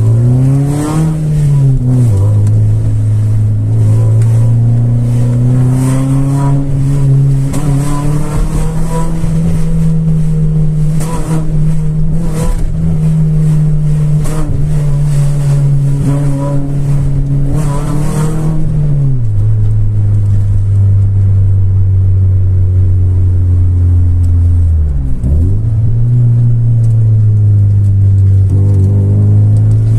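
Alfa Romeo 156 car engine running loudly. Its revs rise about a second in and hold higher for most of the first two-thirds, then drop back. Near the end they dip sharply and recover.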